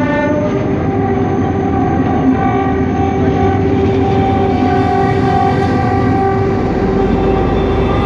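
Locomotive horn sounding one long continuous blast over the rumble of the moving train. Its chord of several tones shifts to a different set of pitches about a second in and then holds steady.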